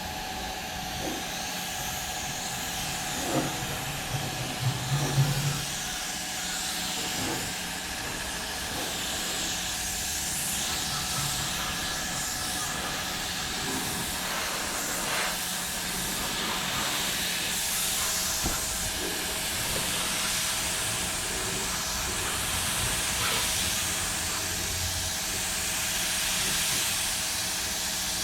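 Compressed-air spray gun hissing steadily as undercoating is sprayed, with a few short knocks a few seconds in.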